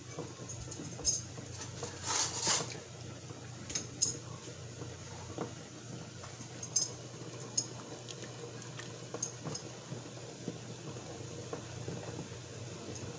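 A spoon clinking and scraping against the side of a stainless steel stockpot of simmering broth: scattered light clinks, the loudest cluster about two seconds in, over a faint steady low hum.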